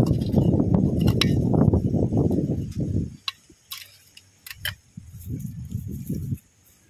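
A few sharp metal clicks and taps of a steel serving spoon against a steel pot while crab masala is ladled out. These sit between stretches of low rumbling noise in the first three seconds and again about five seconds in.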